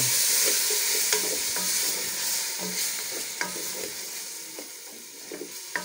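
Beef with onions and freshly added tomatoes sizzling in an aluminium pot while a wooden spoon stirs and scrapes through it in repeated strokes. The sizzle dies down steadily over the few seconds.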